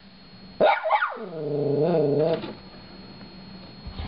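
Small shorkie dog barking sharply twice about a second in, running straight into a drawn-out, wavering growl that lasts about a second. Another bark starts at the very end.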